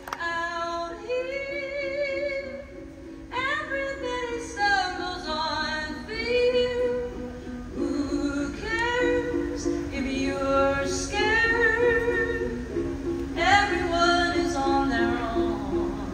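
Live acoustic folk song: a woman sings lead in melodic phrases over an acoustic guitar picking a steady pattern of repeated notes.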